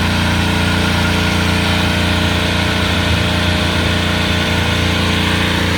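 An engine idling steadily, a constant low hum that does not rise or fall.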